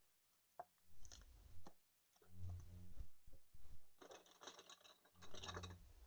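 Foil wrapper of a trading-card pack being torn open and crinkled, in two short crackling bursts near the end, after a few light clicks and rustles of cards being handled.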